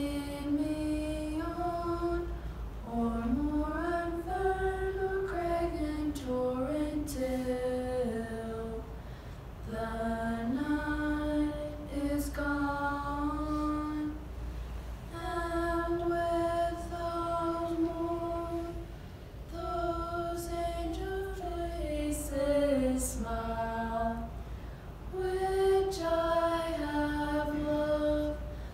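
A girl singing a slow melody a cappella into a microphone, one voice line with long held notes and short pauses for breath, over a steady low hum.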